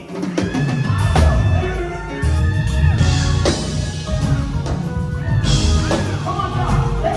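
Music with a drum kit and bass, in a rock style, starting right at the beginning after a sustained low tone cuts off.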